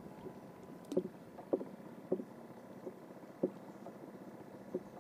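Water lapping against the side of a small boat, with a few soft, irregular slaps or knocks on the hull.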